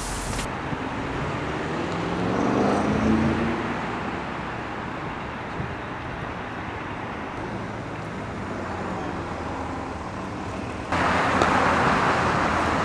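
Road traffic: a vehicle passes about two to three seconds in over a steady traffic hum, and the traffic becomes suddenly louder near the end.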